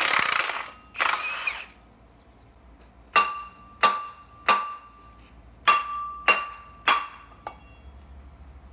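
Two short bursts from a cordless impact wrench on the flywheel bolts of a BMW M50 engine, then about seven hammer blows on the steel flywheel to knock it loose, each blow ringing with a clear metallic tone.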